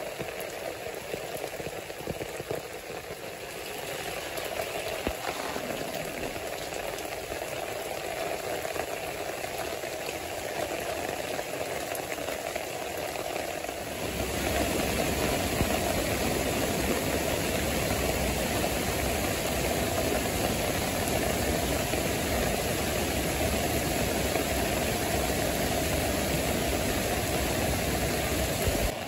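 Steady rain falling on a wet path and foliage, then, about halfway through, the sound changes at a cut to a small stream rushing over rocks, louder and fuller with a low rumble that holds steady.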